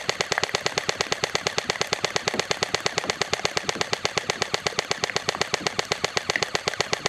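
G&G Raider CM16 airsoft electric rifle firing full auto: its gearbox and piston cycle in a steady, rapid, unbroken stream of shots. The gun runs on a 9.6-volt, 1600 mAh battery.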